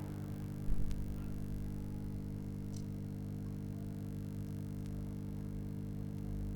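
Steady low electrical hum, with a soft knock about a second in and a few faint clicks.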